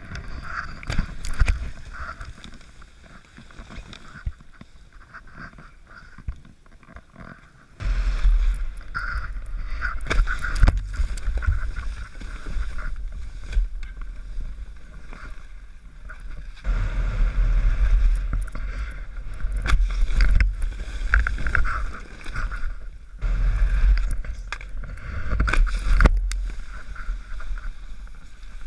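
Wind buffeting a helmet-mounted action camera's microphone while skiing at speed: a heavy, low rushing rumble. It is quieter at first, comes in hard about a quarter of the way in, and runs in long stretches with short dips, broken by occasional knocks.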